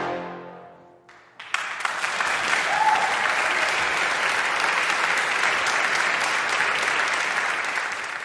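The final chord of a trombone ensemble dies away in the hall's reverberation, then after a brief hush the audience breaks into steady applause that lasts to the end.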